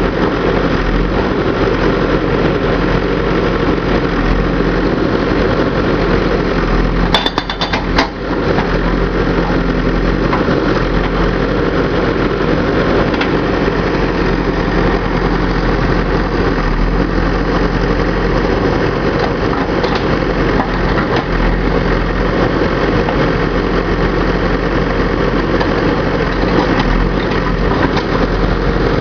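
JCB backhoe loader's diesel engine running steadily, with a short cluster of sharp clicks about seven seconds in.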